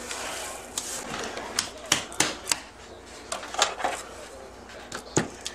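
Scattered light clicks and knocks of kitchen handling, with a faint rustle behind them.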